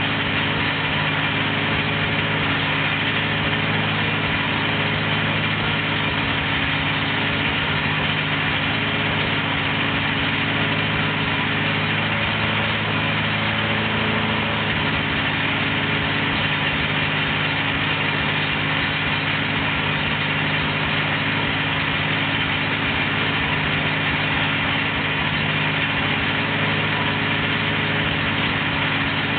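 Farmall tractor engine running steadily, driving a wood chunker through a flat belt off its belt pulley. Its pitch sags briefly about twelve seconds in.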